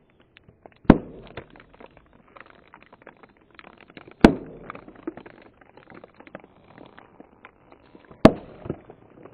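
Foil-sealed plastic drink bottles bursting one after another under a car tyre: three loud pops about four seconds apart, each followed by a smaller pop, with small crackles in between.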